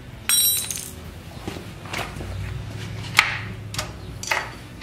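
A metallic ping, then a string of sharp metal clicks spaced about half a second to a second apart: the choke lever on an aftermarket carburetor fitted to a Tecumseh 10 hp engine, flicked open and shut to test whether the choke plate moves freely.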